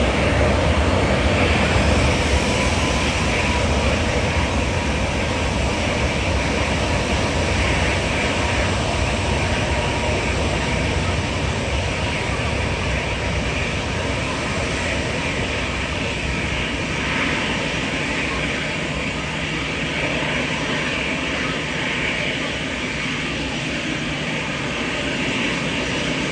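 Twin jet engines of a Boeing 737 freighter at takeoff power during its takeoff roll: a steady, dense jet noise that is loudest in the first few seconds and eases slowly as the aircraft moves away, with a faint whine early on.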